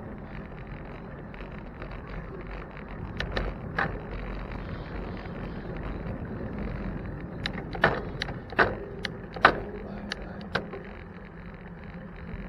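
Steady road and wind noise of a bicycle ride, broken by sharp clicks and knocks: two a little after three seconds in, then a quick run of about six louder ones in the second half.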